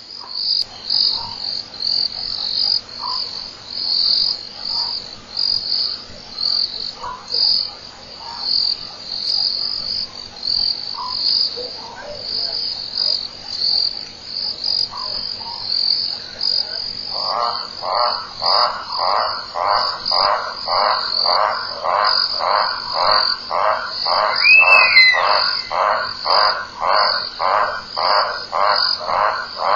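Night chorus of insects and frogs: a high, thin pulsing trill all through. About halfway in, a louder, regular pulsing call joins at roughly two to three pulses a second, typical of a calling frog. A short whistle-like call is heard near the two-thirds mark.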